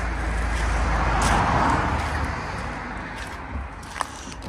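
A motor vehicle passing on a nearby road: a rushing noise with a deep rumble that swells to a peak about a second and a half in, then fades away. Near the end come a light click and a sharp knock.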